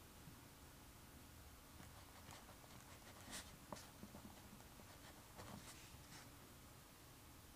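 Writing on paper: a few faint, short, scratchy strokes starting about two seconds in, with a small tick in the middle, over quiet room hiss.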